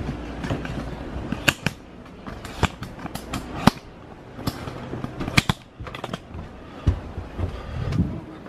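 Footsteps going down indoor stairs, heard as a string of irregular knocks and sharp clicks, one to three a second, along with knocks from the handheld camera.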